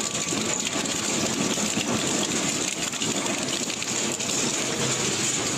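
Heavy machine running: a steady rushing noise filled with a dense fine crackle, as of material being crushed or ground.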